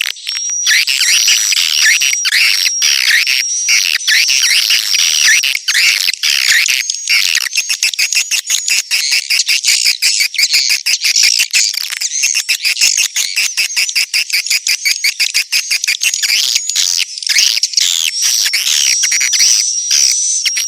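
Edible-nest swiftlet calls: a dense, unbroken twittering of high chirps over fast clicking. It is a lure recording of the kind swiftlet farmers play to draw the birds into a nesting house.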